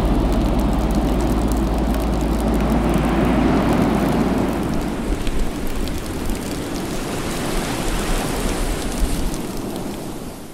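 Squall at sea: wind buffeting the microphone over a steady hiss of rain and breaking water, with many small ticks of drops striking the boat. The low wind rumble eases about halfway through, and the sound fades near the end.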